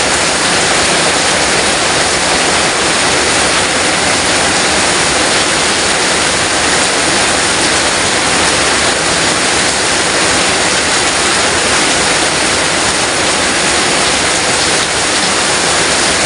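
Heavy downpour: a loud, steady rush of rain with no let-up.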